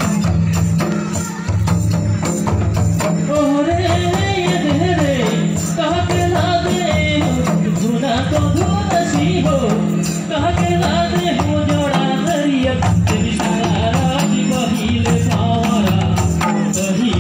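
Karma folk dance music: hand-played two-headed barrel drums beating a steady, repeating rhythm, with singing that comes in a few seconds in.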